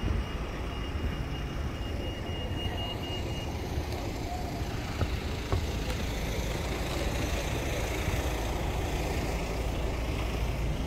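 Road traffic from a queue of cars, a steady low rumble of engines and tyres, with a faint steady high whine through the first few seconds and a couple of short knocks about halfway through.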